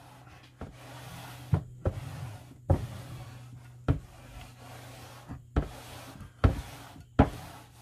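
A bat is rolled back and forth across marine carpet laid on an aluminum boat lid, pressing the rubber-backed carpet into the contact cement. It gives a dull rubbing with a sharp knock about once a second.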